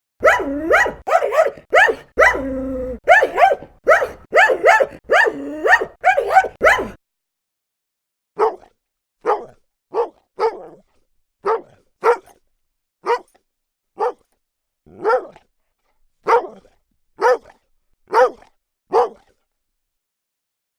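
Dog barks: a fast, loud run of barking for about seven seconds, then after a short pause a quieter dog barking singly, about once a second.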